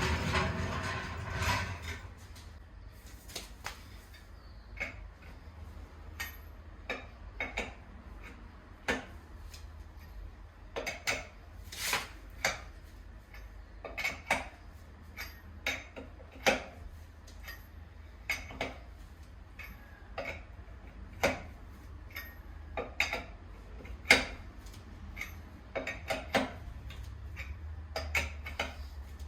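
Metal clinking and knocking at irregular intervals, typical of tools and wheel hardware being handled during a tyre change, over a steady low hum. It opens with a louder rumbling noise that dies away about two seconds in.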